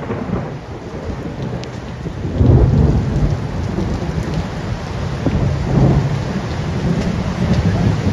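Heavy thunderstorm: a steady downpour of rain with deep rumbling underneath that swells about two and a half seconds in and again near six seconds.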